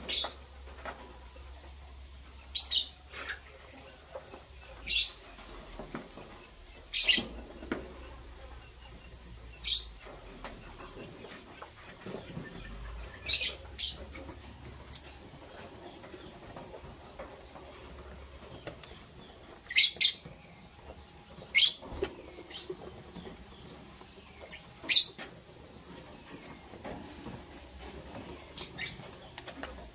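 Lovebirds giving short, sharp, high-pitched chirps at irregular intervals, roughly one every two to three seconds, some in quick pairs.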